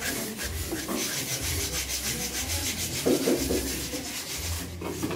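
Sandpaper rubbed by hand back and forth over the edge of a wooden board: quick, repeated scratchy strokes. A brief louder sound comes about three seconds in.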